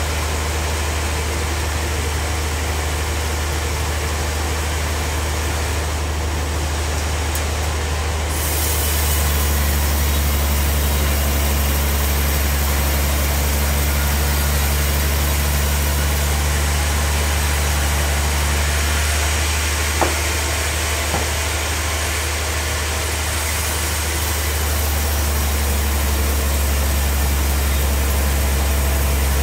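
Large log bandsaw mill running steadily, a strong low hum under a broad hiss, as it saws through a big trembesi (rain tree) log; the sound gets a little louder and brighter about eight seconds in. A single sharp click about twenty seconds in.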